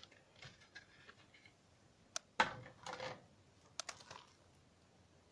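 Faint handling noises from a Blu-ray box set being turned over in the hands: a few sharp clicks and short rustles of cardboard and plastic packaging.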